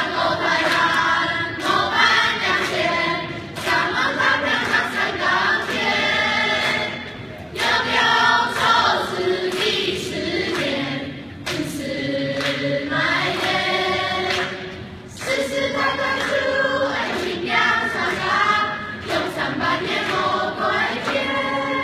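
A class of students singing together as a choir, in sustained phrases with short breaks between them.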